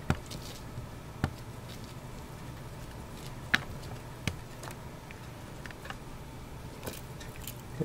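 Leopard gecko and crickets moving about on paper towel in a plastic tub: faint rustling with scattered small clicks, over a low steady hum.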